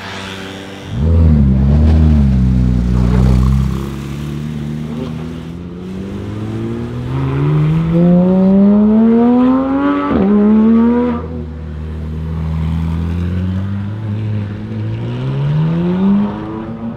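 High-performance sports car engine being revved and accelerated hard. The pitch climbs steadily, drops sharply at a gear change about ten seconds in, climbs briefly, drops again, then rises once more near the end.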